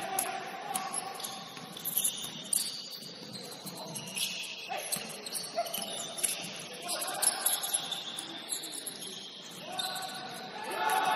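Basketball game sounds in a gym: sneakers squeaking in short high chirps, the ball bouncing, and players' voices calling out, growing louder near the end.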